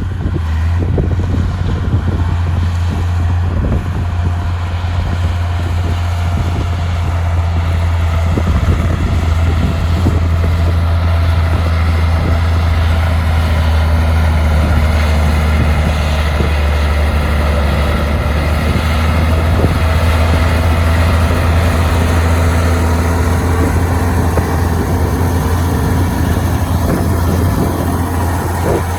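Heavy diesel engine of earthmoving machinery running steadily under load: a deep, constant hum with faint whining tones that drift slowly in pitch, and occasional light knocks.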